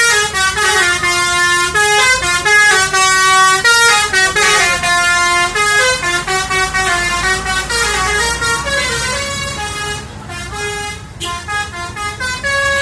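Indonesian 'telolet' bus horn, a set of multi-tone horns playing a loud, jaunty melody of stepping notes that keeps going, a little softer near the end.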